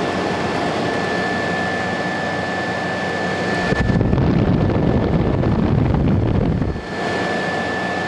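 Comfort Aire 15,100 BTU window air conditioner running with its fan on high speed: a steady rush of blowing air with a thin high whine. From about four to seven seconds in, the air blast from the front vent hits the microphone as a deep rumble, then the steady fan noise returns.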